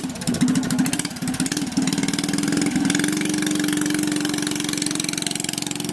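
Minibike's small 3-horsepower engine running. It is uneven for the first couple of seconds, then settles into a steady idle.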